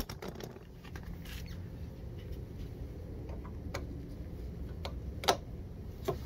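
Scattered light clicks and scrapes of a transom saver's strap and metal hook being handled and fastened on an outboard motor's lower unit, with the loudest click about five seconds in.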